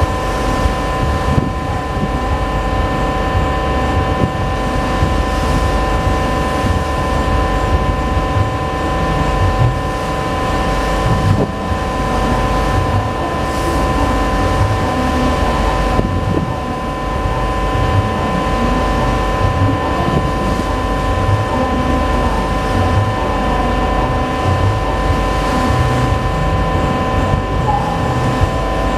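Steady drone of a ship's diesel engines: a constant hum of several held tones over a low rumble, with wind rumbling on the microphone.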